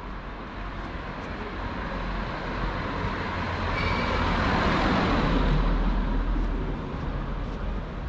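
A motor vehicle drives past over steady traffic noise, growing louder to a peak about five seconds in and then fading away.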